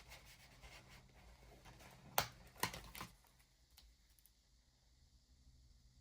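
Paper sticker sheets being handled on a desk: light rustling, then three sharp taps a little over two seconds in, then quieter.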